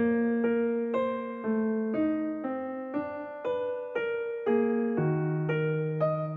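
Background solo piano music, separate notes about two a second, each fading before the next.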